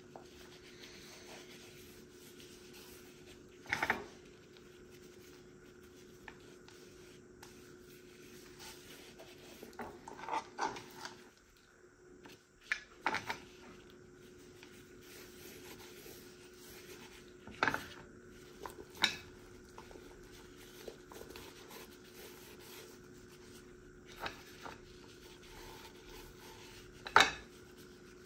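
Gloved hands rubbing a dry spice rub into a whole tilapia on a plastic cutting board, with a few sharp taps and clinks against the board and the spice tray over a faint steady hum.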